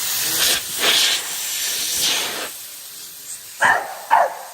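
Water spraying with a loud hiss in surges for about two and a half seconds, then a dog barks three times.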